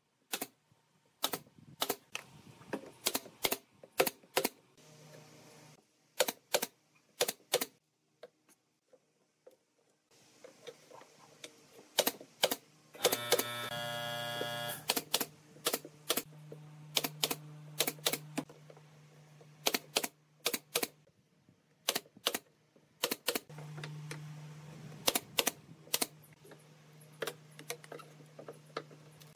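Pneumatic brad nailer firing again and again, sharp irregular shots, some in quick pairs, as it drives brads into pine slats. From about halfway on there is also a steady low hum.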